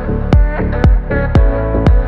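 Background electronic dance music with a steady kick drum about twice a second under held synth chords.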